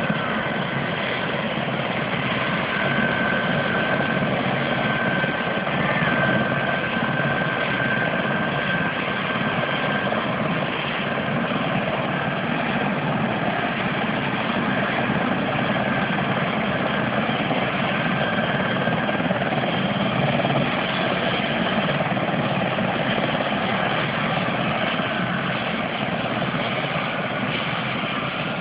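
CH-146 Griffon (Bell 412) twin-turbine helicopter running on the ground at idle with its rotor turning: a steady rush of engine and rotor noise with a thin high turbine whine over it.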